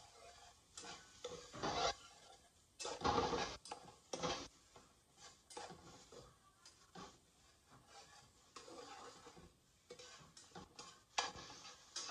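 Slotted metal spatula scraping and stirring chopped onion and garlic in olive oil around a metal frying pan, in irregular strokes with a few louder scrapes. The onion is being softened over low heat without browning.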